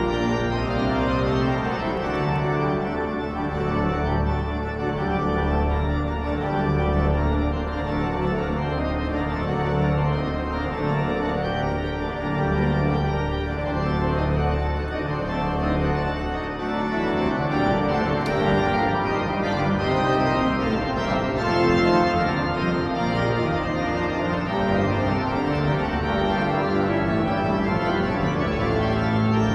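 Lisbon Cathedral's pipe organ playing long sustained chords over deep held pedal notes.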